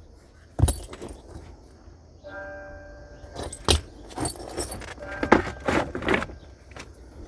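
Sharp clicks and knocks of stone being knapped with a natural hammer, in irregular clusters, with a clinking ring to some strikes. Background music with a held chord comes in about two seconds in.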